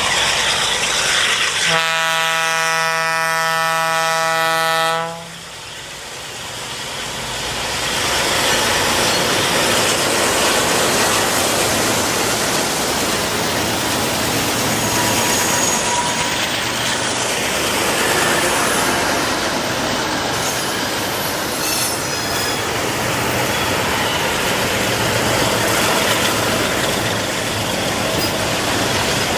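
Diesel freight locomotive horn sounding one held chord for about three seconds, starting about two seconds in. After a brief dip, the loud, steady noise of diesel locomotives and a freight train rolling past on the rails.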